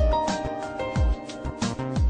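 Background music: sustained melodic tones over deep, booming drum hits.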